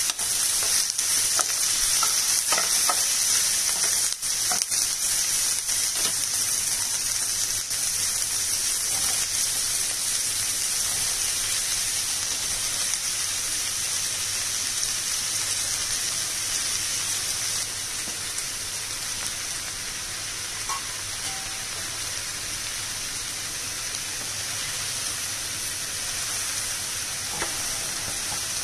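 Chopped onions, curry leaves and green chillies sizzling in oil in a nonstick pan, stirred with a wooden spatula that clicks and scrapes against the pan in the first few seconds; later cubed ridge gourd frying and being stirred, with the sizzle a little softer in the second half.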